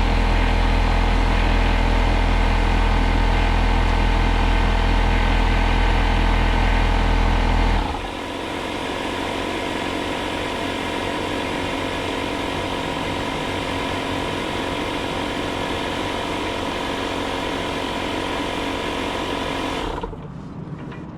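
A motor running steadily with a heavy low hum, dropping about eight seconds in to a lighter, higher-pitched steady hum that cuts off about a second before the end.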